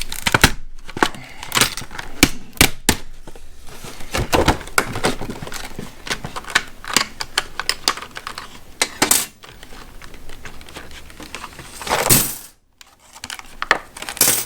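Steel jigsaw blades clinking and rattling against each other as they are handled and slipped into a small plastic bag, with plastic packaging crinkling and a longer rustle about twelve seconds in.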